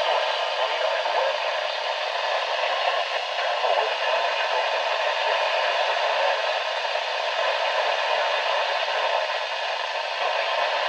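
Steady static hiss from a weather radio receiver, with no clear voice coming through.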